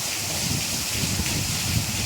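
Steady rainfall: an even hiss of rain with a low, uneven rumble underneath.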